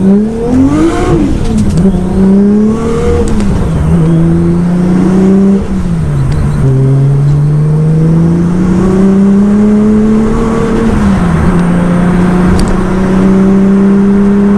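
Nissan Skyline GT-R's RB26DETT twin-turbo straight-six accelerating hard through the gears. The engine note climbs and falls sharply at each of about four upshifts, then holds a steady pitch near the end. It is heard from inside the cabin.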